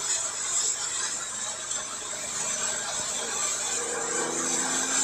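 Inside the cabin of a 992 Porsche 911 Carrera 4S: a steady hiss of tyre spray and road noise from driving through standing water. The twin-turbo flat-six is faint beneath it, and its pitch starts rising near the end as the car accelerates in third gear.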